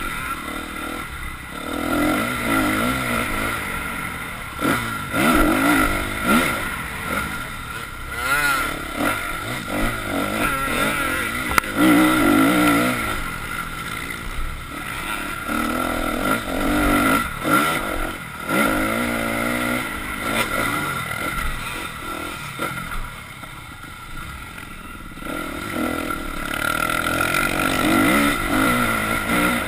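Dirt bike engine heard from on board, repeatedly revving up and backing off as the bike accelerates and slows around the track, with one sharp knock about twelve seconds in.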